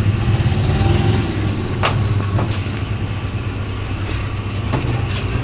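Double-die paper plate making machine running with a steady low hum, with a few sharp clicks over it.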